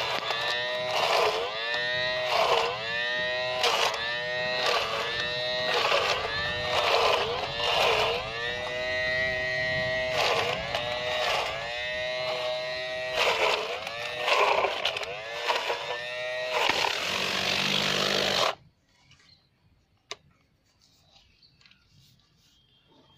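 Small 12 V DC motor of a home-made powered garden tool running, its whine dipping in pitch and recovering about once every second or so as the tool is worked into the ground. The sound cuts off abruptly about three-quarters of the way through.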